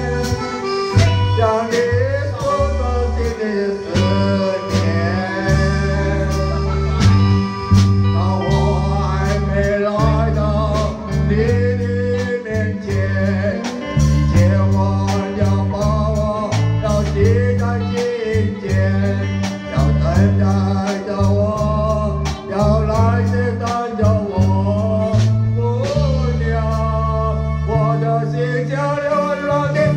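Live band playing a song: a singer holds wavering notes over a bass line that changes note every second or so, guitar, and a steady drum beat.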